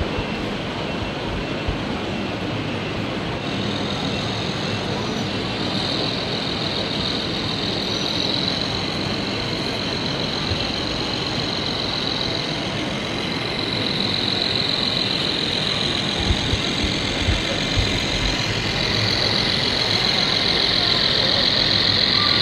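Radio-controlled model heavy-haulage truck driving, with a high whine growing louder near the end as it comes closer, over the steady din of a crowded exhibition hall. A few soft knocks come about two-thirds of the way through.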